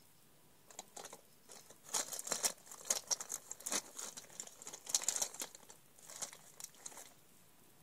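Makeup containers and packaging being handled and sorted through: irregular crinkling rustles and small clicks, starting about a second in and stopping shortly before the end.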